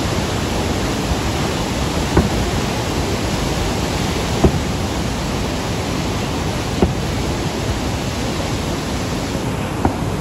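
Steady rush of water from Niagara Falls and the river in front of it, with four dull firework bangs about two seconds apart.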